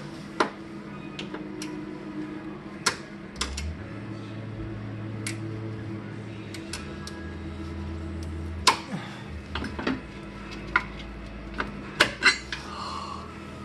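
Metal hand tools clinking against metal brackets under a car: a dozen or so separate sharp clinks, several close together about twelve seconds in, over a steady low hum.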